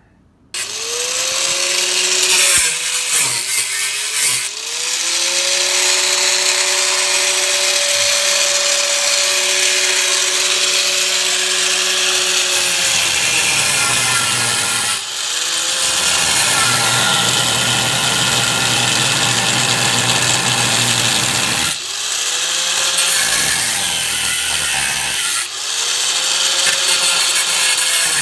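Angle grinder with a flap disc grinding the underside of a car's frame rail down to bare metal for welding. Its motor whine rises as it spins up and sinks as it is let off, with the grinding stopping briefly a few times and starting again.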